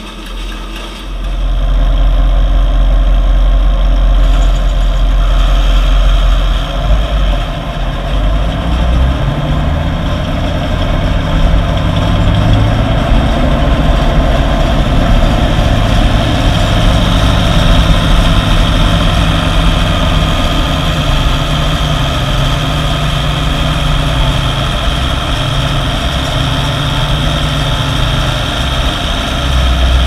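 1976 International Harvester 986 tractor's six-cylinder diesel running steadily under load, pulling a round baler. It gets louder about a second in and stays loud and close.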